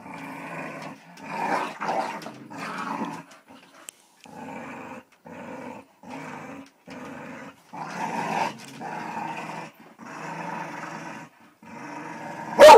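Staffordshire bull terriers play-growling as they tug on a rope toy. The growls come in a string of short bouts with brief gaps between them, and a sudden loud bark comes right at the end.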